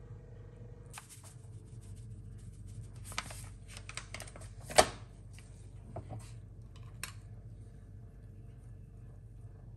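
Light kitchen handling sounds while seasoning a raw chicken in a glass dish: rustling and small clicks of spices being shaken and sprinkled, with one sharper click a little before halfway, over a steady low hum.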